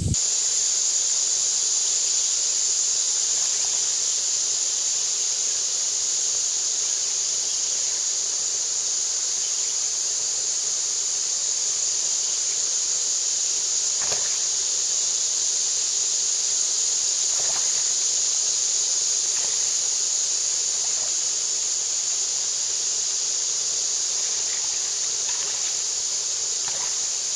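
Steady high-pitched buzzing drone of an insect chorus, unchanging throughout, with a couple of faint clicks in the middle.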